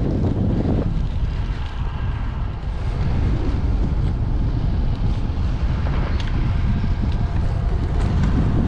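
Wind rushing over the microphone of a camera on a moving road bike, a steady low rumble.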